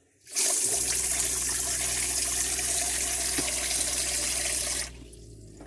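Electric freshwater pressure pump running with a steady hum while water rushes from the tap. It starts about half a second in and cuts off sharply near the end.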